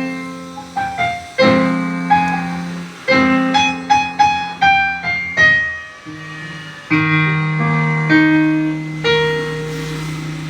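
Casio CT-X870IN portable keyboard being played: held chords in the low register under a melody of single notes above, with many note onsets throughout.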